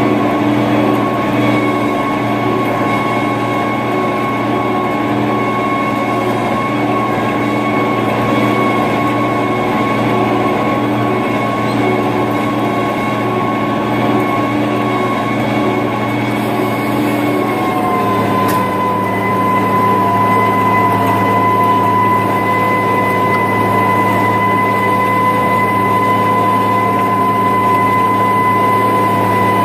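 International Harvester 3588 2+2 tractor's six-cylinder turbo-diesel running steadily under load while pulling a disc through corn stubble, with a steady whine over the engine. The pitch drops slightly about eighteen seconds in.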